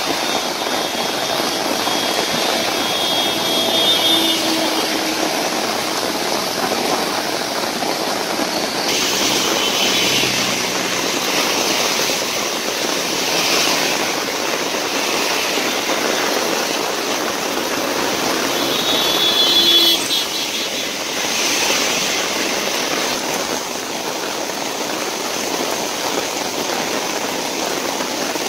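Steady rush of heavy rain and traffic on a wet road, with two brief high tones, one a few seconds in and another about two-thirds of the way through.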